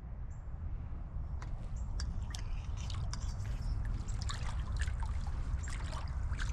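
Water dripping and trickling while a blue catfish is handled in the water, with irregular sharp wet clicks from about a second and a half in, over a steady low noise.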